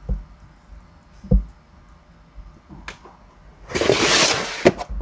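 Plastic snake tub being moved: a couple of soft thumps, then a loud scraping rush of about a second near the end, closed by a sharp knock.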